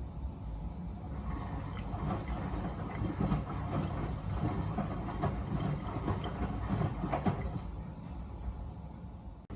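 Miele W Classic front-loading washing machine mid-wash: the drum turns, and wet laundry tumbles and splashes in the water for several seconds before the sound eases off near the end.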